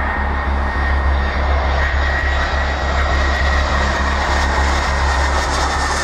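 Airbus A319's CFM56 turbofan engines on landing approach: a steady jet roar with a deep rumble beneath and a steady high whine running through it.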